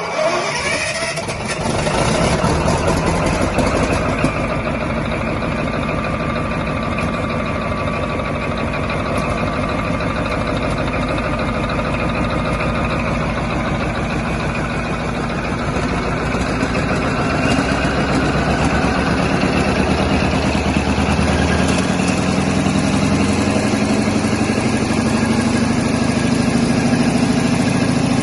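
Caterpillar 3508 V8 diesel engine of a 750 kW generator set, just started and coming up over the first two seconds, then running steadily. About two-thirds of the way through, its pitch starts to rise slowly as the engine picks up speed.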